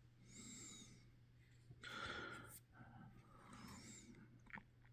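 Near silence: room tone with a few faint soft noises and two light clicks near the end.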